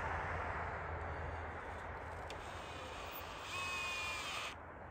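Ryobi cordless drill driving a screw into a wooden railroad tie to fasten the rail. A low motor hum fades early on, then a second burst of high motor whine lasts about a second and cuts off abruptly as the trigger is released.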